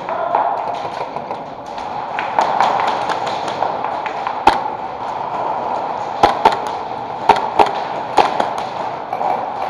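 Irregular single sharp snaps of airsoft gunfire, about seven over the second half, over a steady background hiss.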